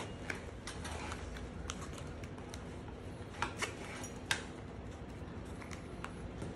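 Small clicks and taps of plastic buckles and hardware on nylon webbing as a scuba trim weight pocket is handled and fastened onto a harness strap, with three sharper clicks a little past halfway.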